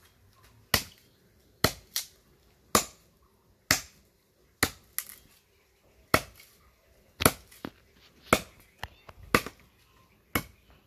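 Machete blows chopping into a wooden stick to cut firewood: a dozen or so sharp chops, roughly one a second.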